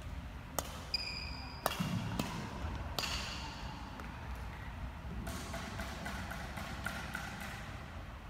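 Scattered sharp taps and knocks with short sneaker squeaks on a wooden sports-hall floor, echoing in the large hall. A brief high squeak comes about a second in, and a quick run of small ticks and squeaks follows about halfway through.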